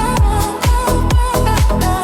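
Electronic dance music with no vocals: a four-on-the-floor kick drum about twice a second under a steady synth line and crisp hi-hats.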